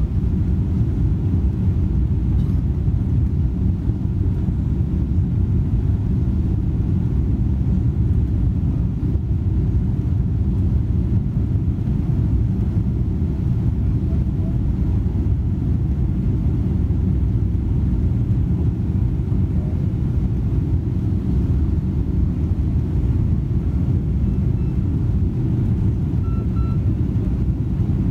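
Steady low rumble of an airliner's engines and rushing air heard inside the cabin during the descent on final approach.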